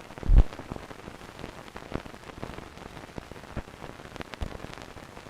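Steady hiss with scattered crackles and pops, like the surface noise of old film or a worn record, with one louder low thump about half a second in.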